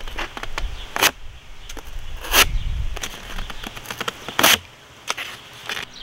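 Folding knife blade slicing through corrugated cardboard: three rasping strokes about a second and a half apart, with fainter scratches between them.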